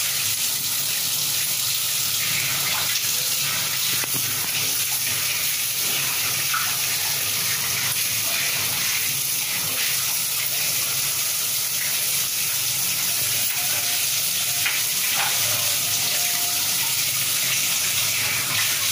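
Tap water running steadily into a kitchen sink, splashing as hands wash under the stream.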